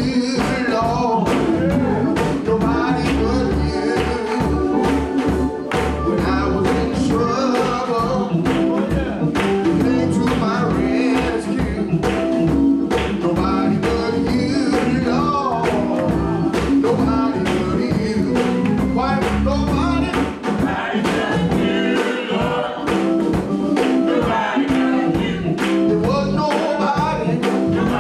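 Gospel singing by a church choir with band accompaniment, over a steady percussive beat and a deep bass line.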